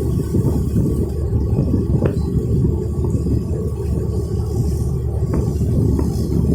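Chao Phraya river ferry's engine running, a steady low rumble.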